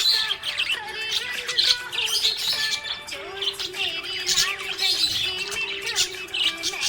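Budgerigars chirping and warbling in a steady stream of quick, high chirps and trills, with a low held tone underneath from about halfway through.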